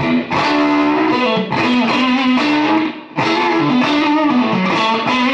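Electric guitar played through heavy fuzz distortion: phrases of sustained, sometimes bending notes, with a short break about three seconds in.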